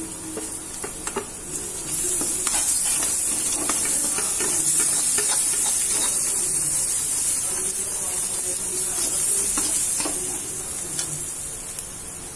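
Onion, garlic and green chilli paste sizzling in hot oil in a kadhai while a spoon stirs and scrapes through it, with light clicks of the spoon against the pan. The sizzle grows louder about two seconds in and eases off near the end.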